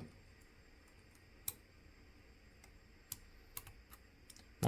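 A few faint, scattered clicks of small tools and parts being handled while the daughter board is worked off the open OnePlus Nord N10 phone.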